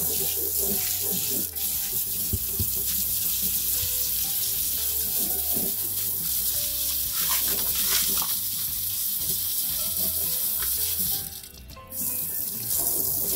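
Sink spray nozzle spraying water into a utility sink, rinsing grit slurry off tumbled stones and ceramic media in a sieve. It is a steady hiss that stops for about a second near the end, then starts again.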